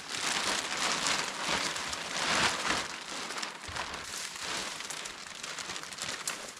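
Plastic sheeting rustling and crinkling as it is handled and spread over a stick shelter frame, swelling loudest about two and a half seconds in.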